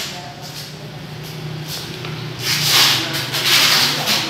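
Packing tape pulled off its roll in three noisy pulls from about halfway through, as an audio unit is taped up in plastic. A low steady hum runs underneath.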